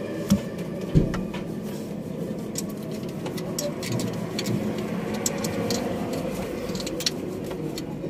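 A steady engine hum, with scattered metallic clicks and taps; two sharp knocks stand out in the first second.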